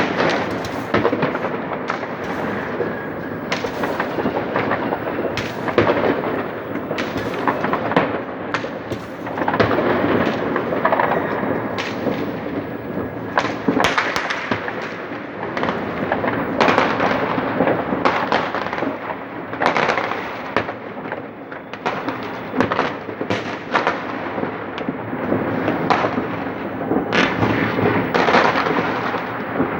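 Fireworks going off in large numbers: a dense, unbroken crackle of overlapping bangs and pops, with sharper, louder bursts standing out every second or so.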